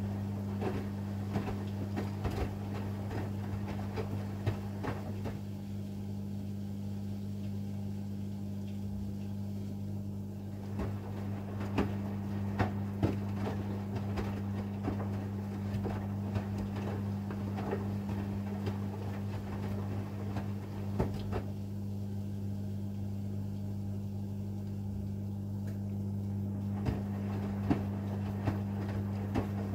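AEG 8000 Series Lavamat washing machine tumbling laundry in its drum, with irregular knocks and clicks over a steady low hum. The tumbling stops twice for about five seconds at a time, as the drum pauses between turns.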